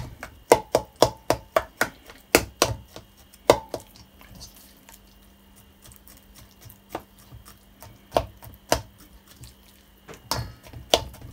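A knife point stabbing holes in raw rump steak in a stainless steel bowl: a quick run of sharp taps over the first few seconds, then a few scattered taps later.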